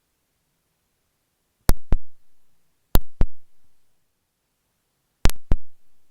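Dressmaker's marking pins flicked against an earphone microphone, giving sharp clicks close to the mic in three pairs, the two clicks of each pair about a quarter second apart, each with a short low thud after it.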